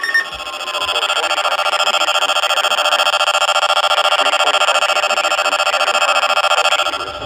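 Emergency alert attention tone: a loud, harsh, steady alert tone held for about seven seconds, starting just after the beginning and cutting off near the end.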